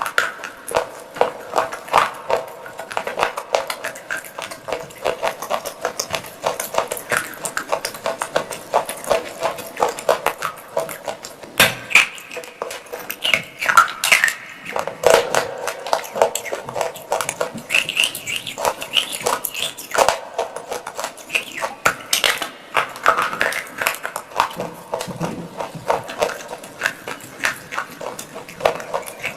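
Close-miked crunching and chewing of dry clay pot pieces: a steady run of crisp cracks and crunches, some louder bites standing out.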